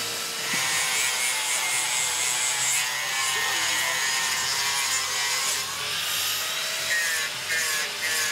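Carving chainsaw cutting into a large wooden sculpture, running steadily, then from about seven seconds in revved in short bursts with brief pauses between them.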